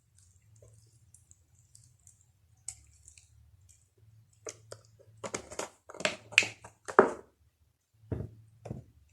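Close-miked eating sounds of crumbly dry maize pap (uphuthu) with sour milk: soft mouth clicks at first, then a run of sharp, crackly, wet chewing and smacking sounds in the second half, with two more near the end.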